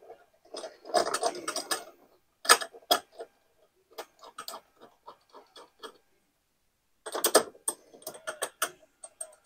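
Hand-fitted metal exhaust parts on a Honda EU3000is inverter generator clicking and clattering against the muffler housing as they are put back in place. The sounds come in bursts of rapid clicks, with two sharper knocks near the middle.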